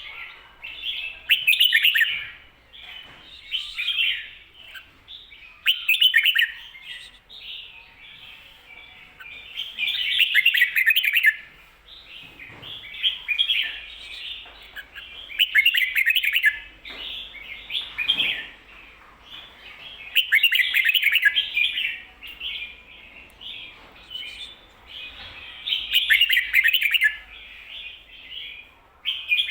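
Red-whiskered bulbul singing its 'ko-ta-ra' song with doubled phrases: short, bright, chirpy warbled phrases repeated every few seconds.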